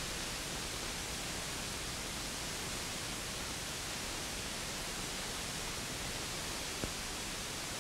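Steady hiss of an old film soundtrack with nothing else playing, and a single faint click about seven seconds in.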